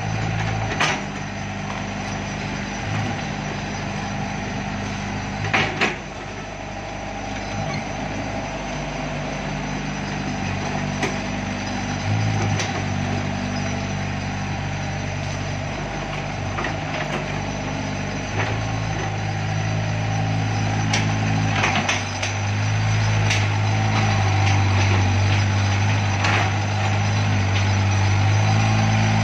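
2007 Doosan 55 mini excavator's diesel engine running steadily while the machine works its arm and tracks, with a few sharp metallic clanks. The engine gets louder in the last several seconds.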